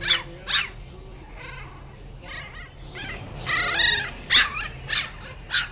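Cavalier King Charles Spaniel puppy yapping in short, high-pitched yips: two sharp ones at the start, fainter ones after, a longer whining cry about halfway through, then three more sharp yips near the end.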